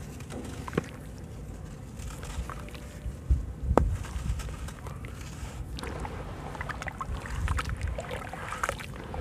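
Hands crumbling wet sand-cement chunks into a basin of water, grit and lumps dropping in with splashes, then swishing and stirring the muddy water. Two louder splashes come about three and four seconds in, and many small splashes and drips follow in the second half.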